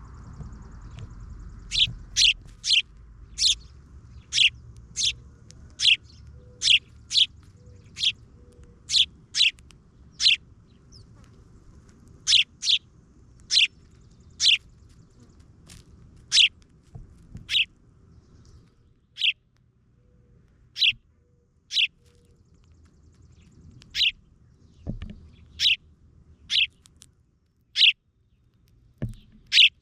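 A bird chirping: short, sharp, high chirps repeated at an uneven pace of about one or two a second. Two brief dull knocks come near the end.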